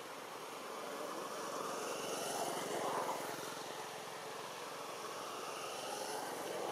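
A passing motor engine running, with fine, even pulsing. It swells to its loudest about three seconds in and then eases slightly.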